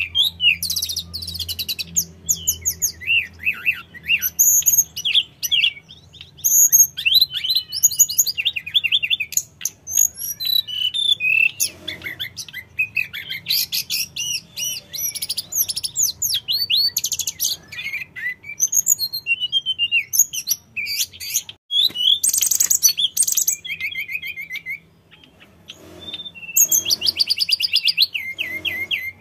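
Male hill blue flycatcher in full song: a long, varied run of quick whistled phrases and rapid trills, with one short pause about three-quarters of the way through.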